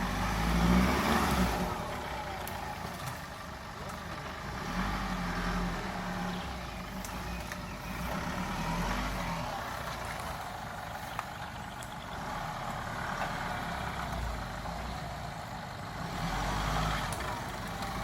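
A 4x4's engine running and revving up in several surges of a second or two, each falling back between pulls.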